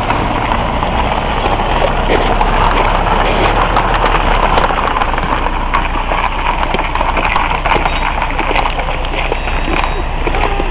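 Large wood fire burning, with a steady rush of flames and dense crackling and popping throughout.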